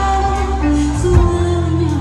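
A pop song with singing: a voice carries a melody over long, steady bass notes.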